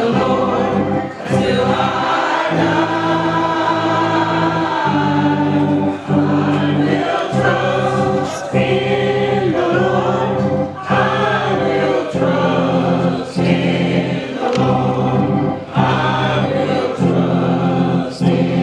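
Gospel choir singing with instrumental accompaniment, several voices holding and changing notes over a steady bass line that moves every second or two.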